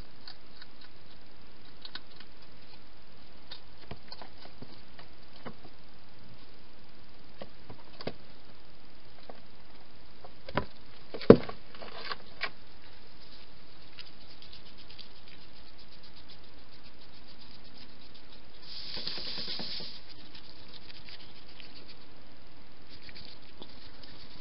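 Wild hedgehog at a plastic feeding box: scattered small clicks and crunches as it feeds, a sharp knock about eleven seconds in, and a brief rustle near the camera later on, all over a steady hiss.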